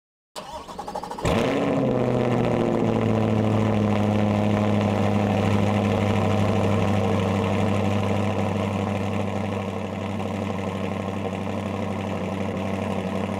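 An engine cranks briefly and catches about a second in with a quick rev flare that falls away, then settles into a steady idle.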